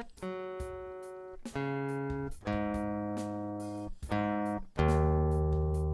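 Acoustic guitar being tuned: single strings are plucked one at a time and left to ring, about five notes. A low string, the loudest, rings out near the end.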